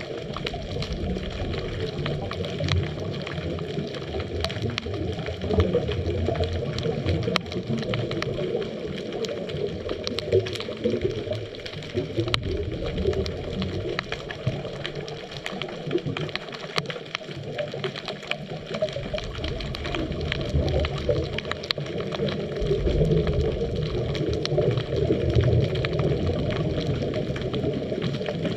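Underwater sound picked up by a GoPro inside its waterproof housing: a muffled, gurgling wash of water and bubbles that swells and eases, dotted with many small clicks.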